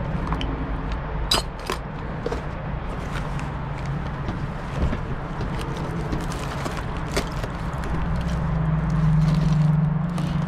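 Small loose items being rummaged through and handled, with scattered clicks, clinks and rustles, over a steady low hum that grows louder near the end.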